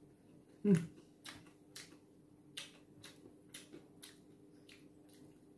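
Eating sounds: a string of small, irregular clicks from a metal spoon scooping food in a takeaway box and from chewing, with a short hummed "mm" about three-quarters of a second in.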